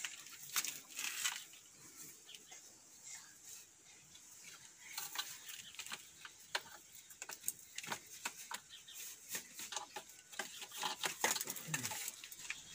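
Black plastic drip-irrigation tubing being uncoiled and handled: scattered light clicks, taps and scrapes as the tube is pulled and knocks against itself and the wall.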